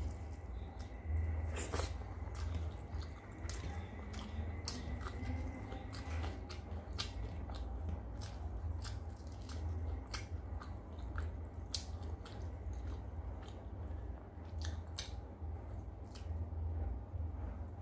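A person eating rice and steamed hilsa with the fingers: wet chewing and mouth smacks mixed with squelches of rice and fish being mashed on a plate, a steady run of small sharp clicks over a low hum.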